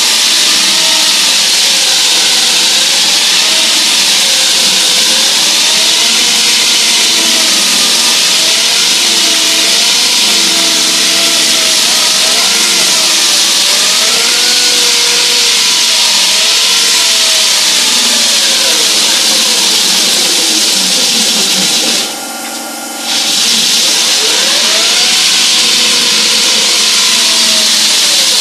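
Hydraulic diamond wall saw cutting reinforced concrete: a loud, steady cutting hiss with a whine that wavers up and down in pitch. About three quarters of the way through, the cutting noise drops out for about a second, leaving only a steady machine hum, then comes back.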